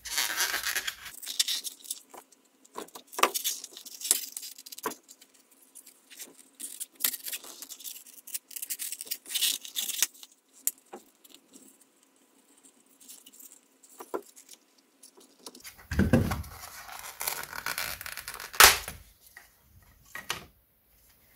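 Polystyrene foam enclosure of a radiosonde being pried and broken apart by hand: scattered creaks, scrapes and cracks of the foam. Denser crunching comes in the last few seconds, with one loud crack as the glued halves give way.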